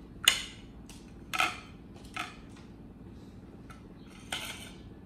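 Kitchen clatter of a cleaver, metal colander and plates being handled: four sharp clinks at uneven intervals, the first the loudest, with a few fainter ticks between.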